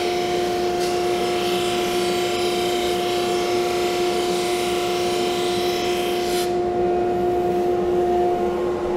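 Drum sander running with a steady hum while a thin hardwood veneer piece is fed through, its sanding hiss stopping suddenly about six and a half seconds in as the piece comes off the drum; the motor keeps running. The pieces are being sanded to final thickness in repeated passes.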